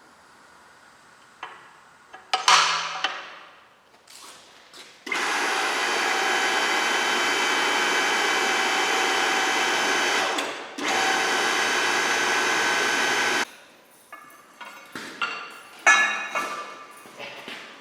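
Power tool running steadily for about eight seconds, with a short break partway through, as steel pipe is worked for railings. Scattered metal knocks and clanks before and after it.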